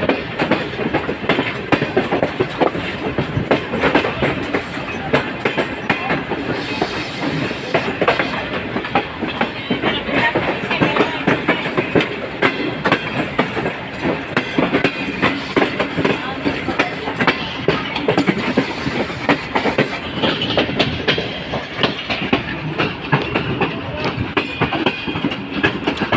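Pak Business Express passenger train running along the track, its wheels clattering over the rail joints amid a constant rattle of the coaches.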